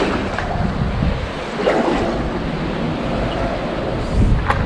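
Wind buffeting the microphone, a steady rushing rumble, with a couple of faint knocks.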